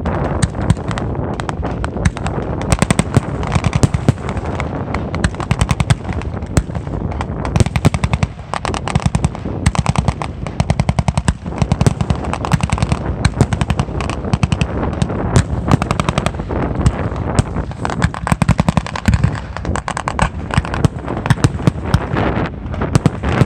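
Fireworks going off in a dense, unbroken barrage of rapid sharp bangs, with louder single reports scattered all through.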